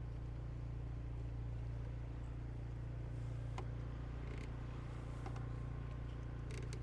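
A steady low mechanical hum at an even level, with a few faint clicks and ticks in the second half.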